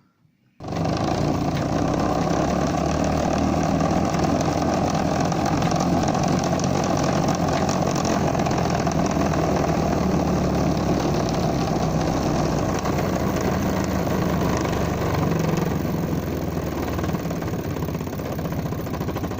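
Inflated water balloon fixed to a bicycle near the gears, slapped by the turning wheel's spokes. It makes a steady, loud, fast rattling buzz that imitates a small motorbike engine, starting abruptly about half a second in.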